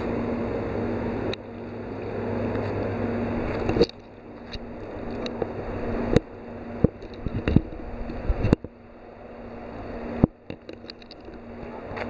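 Steady low mechanical hum under a noisy background wash at the water's edge, with several sharp clicks and knocks. The background cuts off abruptly several times and each time builds back up gradually.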